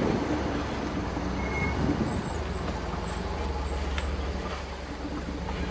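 Off-road vehicle engine running with a steady low rumble.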